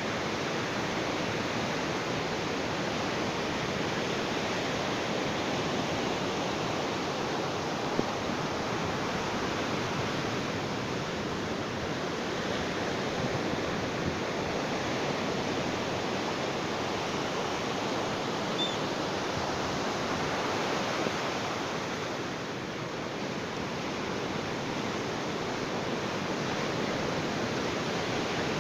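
Ocean waves breaking and washing on a beach: a continuous rushing surf that eases slightly about three-quarters of the way through.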